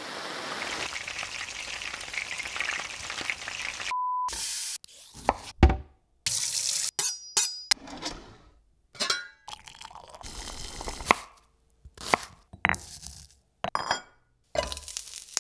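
Television static hiss for about four seconds, cut off by a short steady beep, then a string of brief, separate kitchen sounds (sizzling, stirring, pots and dishes clinking) with silent gaps between them.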